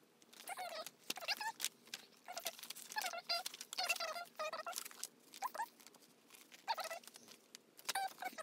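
A small animal squeaking and chirping in many short, high-pitched calls that bend up and down in pitch.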